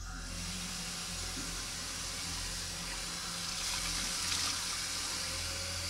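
Running water, a steady rushing hiss that starts abruptly and grows a little stronger about halfway through, over a low steady hum.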